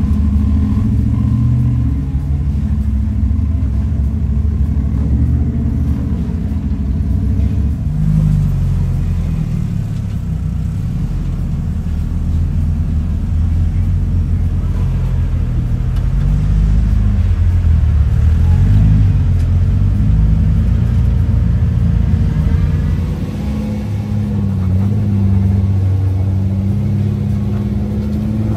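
Engines of modified rock-crawling Jeeps and a buggy running low and deep, revving up and down as they crawl up steep rock ledges. The engine sound changes abruptly a couple of times as one vehicle gives way to the next.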